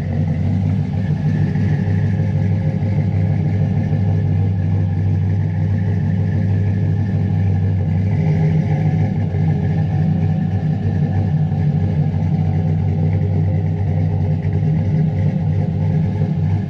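Chevrolet Silverado's 5.3-litre LS V8 with a Brian Tooley Racing stage 2 truck cam idling steadily at the exhaust tip, with a slight lope from the cam.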